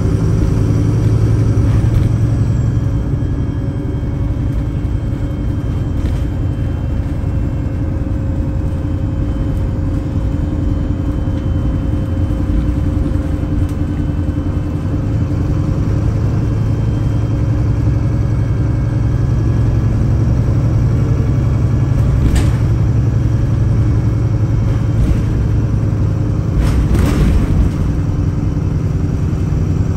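VDL SB200 single-deck bus's rear-mounted diesel engine heard from inside the cabin, running with a steady low drone that grows stronger in the second half. Sharp rattles come twice near the end.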